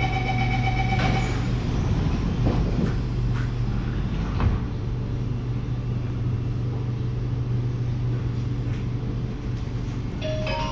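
Door-closing warning beeps on a Kawasaki Nippon Sharyo C751B MRT train for just over a second, then the car doors sliding shut with a couple of knocks over a steady low hum from the train. A chime begins just before the end.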